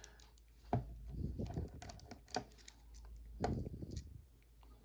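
Small metal parts of a Channellock snap ring plier being handled and fitted together by hand: a few scattered light clicks and taps with soft handling noise.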